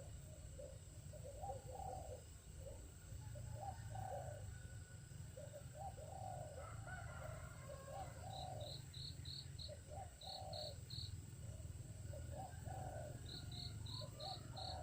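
Birds calling in the open, with repeated low, mellow calls throughout. In the second half come three runs of quick, high chirps, of about five, three and five notes, all over a steady high insect drone.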